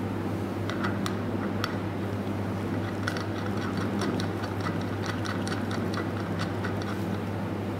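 Light, irregular metallic clicks and taps from air connection fittings being threaded into a pneumatic cylinder by hand, over a steady low hum.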